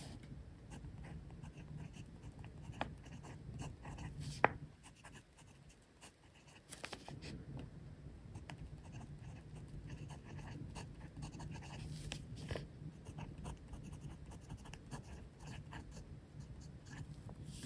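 Fountain pen nib writing on grid paper, a soft run of short, irregular strokes from a Montblanc Writer's Edition Sir Arthur Conan Doyle pen with a fine nib. A single sharp tap stands out about four and a half seconds in, followed by a short pause in the writing.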